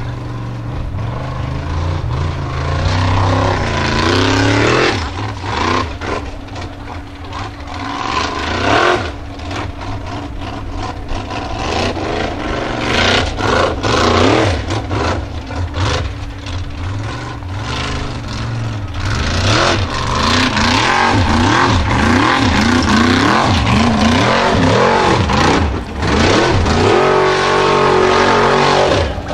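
Formula Offroad buggy's engine revving hard in repeated surges as it climbs a steep dirt hill. Its pitch rises and falls again and again, with a brief drop in loudness near the end.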